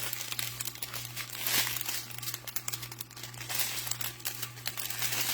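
Small plastic bags of diamond-painting drills crinkling and rustling as they are handled, with a continuous run of quick crackles.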